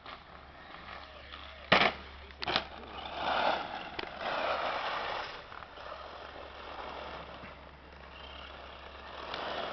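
Electric RC short-course truck running over loose gravel: tyres crunching and spraying grit, with two sharp knocks a little under two seconds in and a rush of gravel noise that swells and fades.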